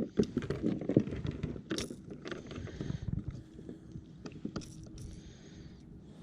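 Handling noises on a fishing kayak: irregular knocks, rubbing and sharp clicks, busiest in the first second, then fewer.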